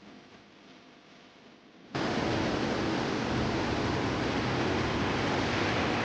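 Loud, steady rush of Thomson Falls' 74-metre waterfall, cutting in suddenly about two seconds in after a faint stretch.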